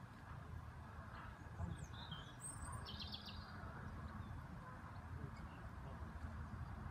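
Faint outdoor ambience: a low steady rumble with a few short bird chirps and a quick trill about two to three seconds in.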